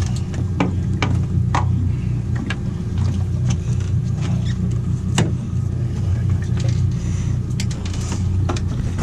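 Twin outboard motors idling with a steady low rumble, with scattered sharp clicks and knocks on top.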